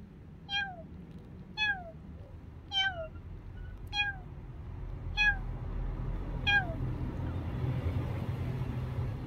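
Tabby-and-white kitten meowing six times, about once a second, each meow falling in pitch. A low steady rumble builds underneath from about halfway through.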